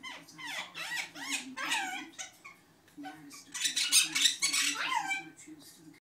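Two pet parrots making laugh-like calls: a string of quick squawks and whoops that rise and fall in pitch, loudest and harshest from about three and a half to five seconds in.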